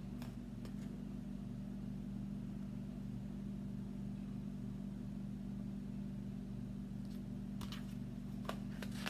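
A steady low hum of room background noise, with a few soft clicks and rustles near the end as the picture book is handled and lowered.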